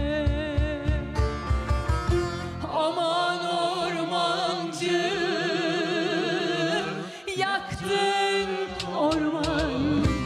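Turkish folk music from a live band: a wavering melody line with heavy vibrato carries the middle of the passage, with rhythmic low strokes from bass and percussion before and after it.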